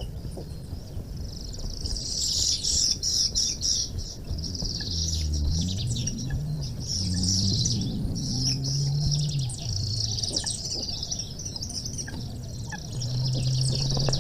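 Many small birds chirping and twittering together in a dense, continuous chatter. A low hum comes and goes underneath.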